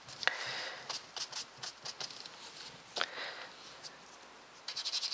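Paintbrush rubbing paint across watercolour paper: soft scratchy rustling in a few strokes, about the first second and a half, briefly around three seconds in, and again near the end.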